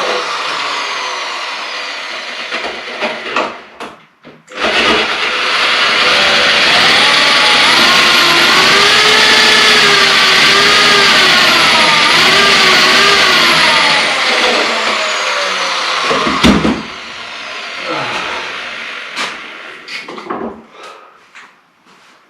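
Electric drill boring into an oak slab. The motor runs loud with its pitch rising and falling as the bit bites into the wood. It stops briefly about four seconds in, then runs again and spins down a few seconds from the end.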